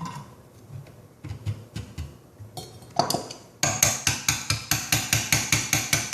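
A few light knocks of copper parts being handled, then from about three and a half seconds in a fast run of sharp metallic taps, about five a second. This is a copper fitting being tapped onto a fluxed copper pipe to seat it all the way.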